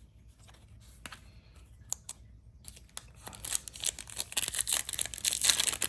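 A trading card pack's foil wrapper being torn open and crinkled. It starts about three seconds in, after a few faint clicks, and runs on as dense crackling.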